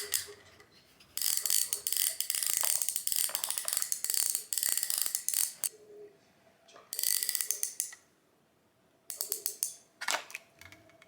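A plastic toy construction vehicle's gear mechanism ratcheting in three bursts of rapid clicking, the longest lasting several seconds.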